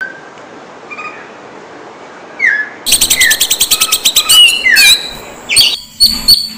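Oriental magpie-robin (kacer) singing: a few faint chirps at first, then from about three seconds in a loud, rapid song of fast repeated notes and swooping whistles.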